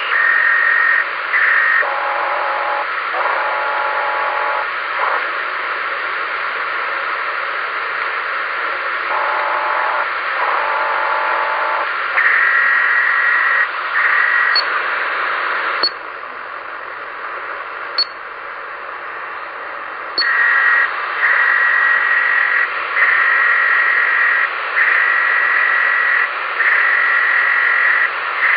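Ham radio receiver on the 10 band putting out steady hiss with an unidentified signal on top: blocks of steady stacked tones, lower-pitched ones twice in the first half, then higher tones switching on and off about once a second. Midway the hiss drops quieter for a few seconds, with a few sharp clicks.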